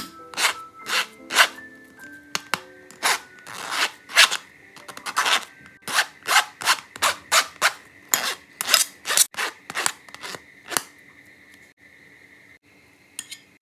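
Boiled mashed potato being scraped and pressed through a fine stainless-steel mesh sieve: repeated rasping strokes, about two to three a second, which stop about eleven seconds in, with two more near the end.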